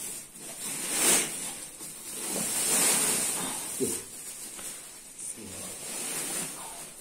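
Dried seeds sliding and pouring off a cloth sheet into a woven sack, with the cloth and sack rustling as they are gathered and shaken. The pouring swells twice, about a second in and again in the middle.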